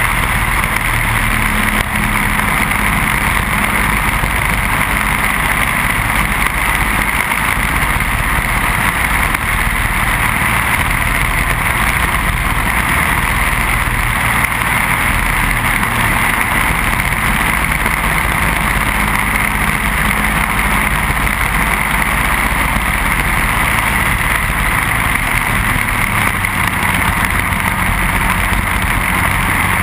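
Onboard sound of a Briggs & Stratton Animal four-stroke racing kart engine running at speed, its pitch shifting only slightly, under a steady rush of wind and road noise on the camera.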